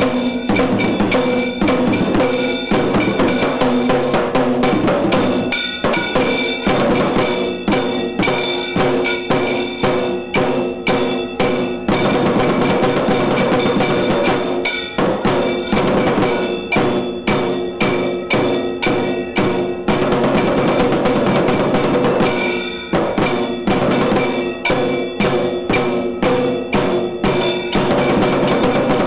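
Tiru Kailaya Vadyam, a South Indian Shaiva temple instrumental ensemble, playing loud, fast, dense drumming with metallic strokes over steady held tones.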